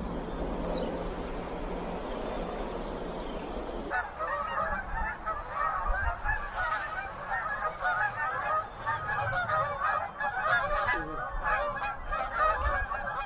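A steady rushing noise with a low hum, then, from about four seconds in, a flock of geese honking in many overlapping calls.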